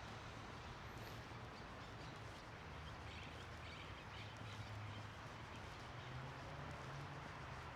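Quiet garden ambience: a steady low rumble of distant city noise with faint bird chirps about halfway through.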